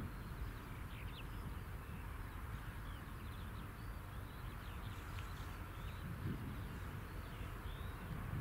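Small birds chirping and twittering in quick short notes, over a steady low rumble with occasional gusts of wind on the microphone.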